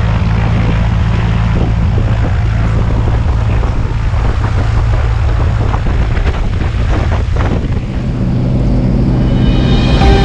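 Single-engine light aircraft's piston engine and propeller running steadily on the ground, heard close through the open cabin door. The engine gets louder near the end as the plane starts to taxi.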